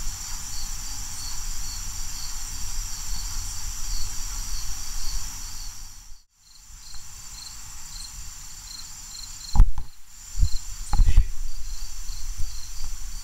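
Insects chirping steadily: a regular pulsed chirp repeating a few times a second beneath a higher continuous trill. The sound drops out for a moment about six seconds in, and a few dull low thumps come near the end.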